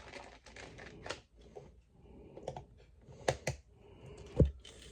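AAA batteries being handled and pressed into the plastic battery compartment of a TrackMaster Percy toy engine: a scattering of small plastic clicks and taps, the sharpest a quick pair past the middle, followed by a duller knock near the end.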